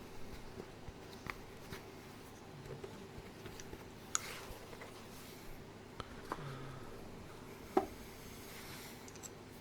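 A few scattered small clicks and taps, irregular and unevenly spaced, over a faint steady hum; the sharpest click comes near the end.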